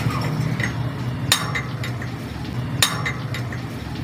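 Metal pipe pounded down over a bicycle fork's steerer tube to drive a headset part into place. Two ringing metal-on-metal strikes about a second and a half apart, with lighter clinks between them.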